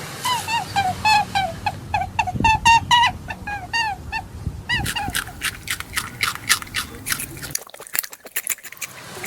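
A run of short animal calls, each a quick falling note, about four a second. About five seconds in they give way to a rabbit chewing, with a quick stream of crisp crunches.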